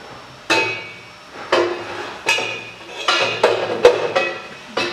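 Steel exhaust downpipe knocking against the cast exhaust manifold and chassis while it is worked into place: about eight sharp metallic clanks at uneven intervals, each ringing briefly.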